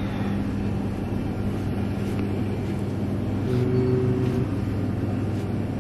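Steady mechanical hum of a convenience store's refrigerated coolers and ventilation, with a brief higher tone joining for about a second midway.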